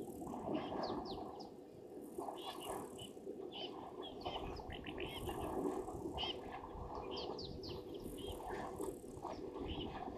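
Birds chirping, a string of short, quick calls repeating throughout, over a steady low background noise and a faint steady hum.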